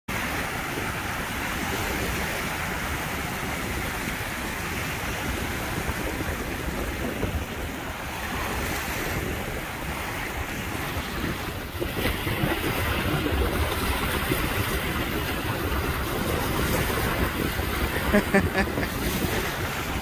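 Small wind-driven waves lapping and breaking on a sandy lake shore, with wind buffeting the microphone. A few short, sharp, louder sounds come about two seconds before the end.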